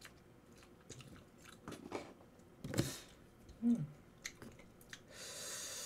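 Close-miked chewing and biting of spicy tteokbokki and kimbap, with small clicks from utensils and mouth, a brief crunch about three seconds in and a short hum just after. An even hiss lasts about a second near the end.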